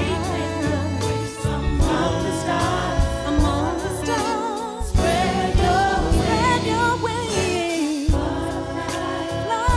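Gospel choir and band performing live: sung lines with a wide vibrato over full choir harmony, with drums and bass keeping the beat.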